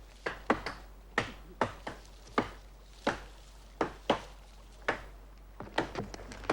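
A blade chopping into wood: an uneven run of sharp strikes, one to three a second, each with a short ringing tail.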